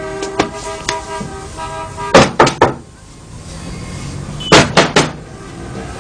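A held chord of background music fades out, then knocking on a wooden door: three quick knocks, a pause of about two seconds, and three more knocks.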